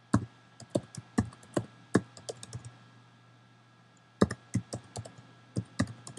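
Typing on a computer keyboard: quick runs of keystroke clicks, with a pause of about a second and a half in the middle, over a faint steady hum.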